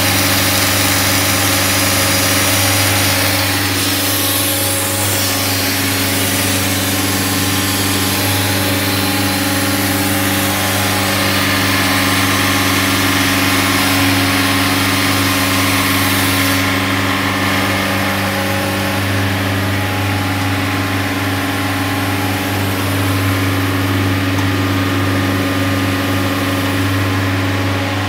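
Self-generating nitrogen servicing cart running under load: its engine-driven compressor hums steadily, with a high hiss of air over it that drops off about two-thirds of the way through.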